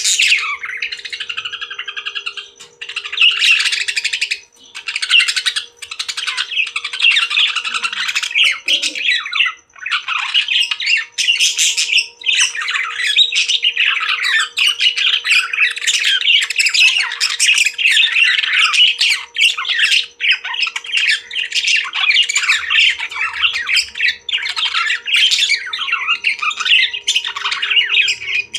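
Pet parrots chirping and chattering in a dense, rapid stream of calls, with a few short pauses in the first ten seconds, over a faint steady hum.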